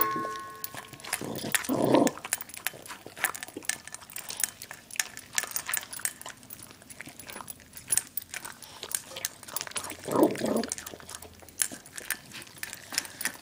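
Dog eating from a metal bowl, with frequent sharp clicks of chewing and teeth against the bowl, and two short growls, about two seconds in and again about ten seconds in.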